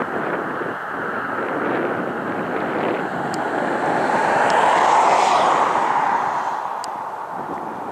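Jet engines of a DC-10 air tanker on landing approach: a steady rushing jet noise that grows to its loudest about five seconds in, then eases off a little.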